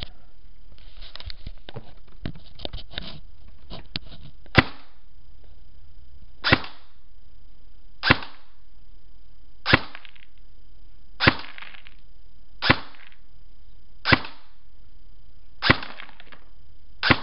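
Echo1 XCR airsoft electric gun firing single shots into a chronograph: nine sharp shots about a second and a half apart, after a flurry of small clicks in the first few seconds. The shots clock a steady 341 to 344 fps, really consistent.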